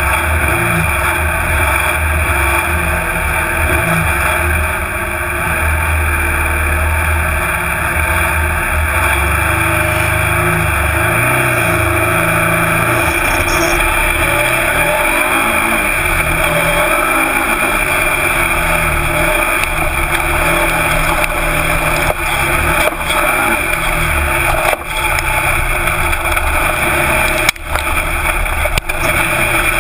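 Twin-turbo Nissan VQ30 3.0-litre V6 in an offroad buggy, heard onboard, running hard with the revs rising and falling as the driver accelerates and lifts. The sound dips sharply a few times near the end.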